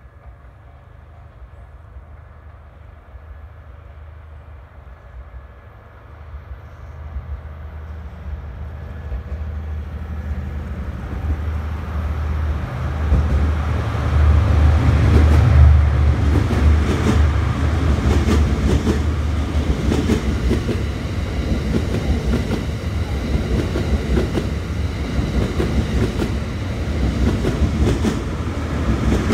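Train Suite Shikishima (JR East E001 series) passing at low speed on the non-electrified line, its diesel generators running. A low engine drone grows louder over the first half. Then a long run of wheel clicks over the rail joints follows as the carriages go by.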